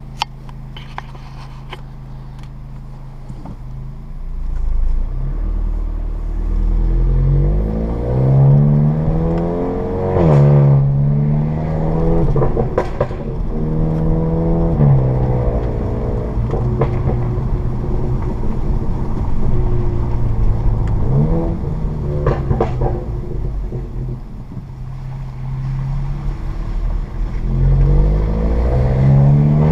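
A 2015 VW Mk7 GTI's turbocharged 2.0-litre four-cylinder, with an APR Stage 2 crackle tune and a Borla S-Type cat-back exhaust, runs steadily for the first few seconds. It then accelerates hard several times, its pitch climbing and dropping back at each DSG upshift or lift-off, with sharp exhaust pops and crackles at several of the drops.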